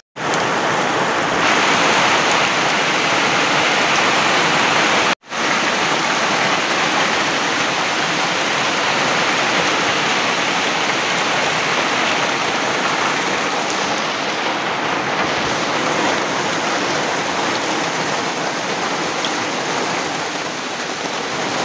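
Heavy rain falling steadily and splashing into puddles on muddy ground, with a momentary break in the sound about five seconds in.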